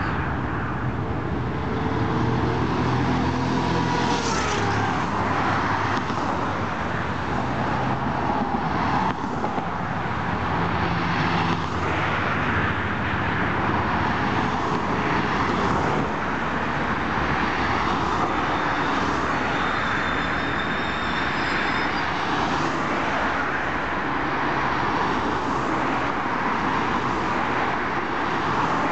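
Road traffic: cars passing one after another on a multi-lane road, a steady rush of tyres and engines, with engine tones bending as vehicles go by.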